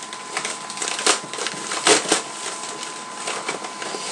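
Cardboard and plastic packaging being handled and torn open, a continuous crackling rustle with a few sharper cracks, the loudest about two seconds in.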